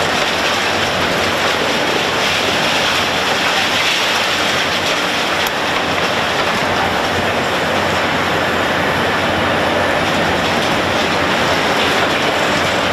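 Demolition excavator with a hydraulic crusher attachment breaking up a concrete building. It makes a dense, steady clatter of crunching concrete and falling rubble, with the machine running underneath.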